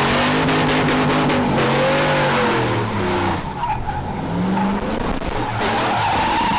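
A car drifting: its engine revs up and down while the tyres skid and squeal. A high, steady tyre squeal builds over the second half.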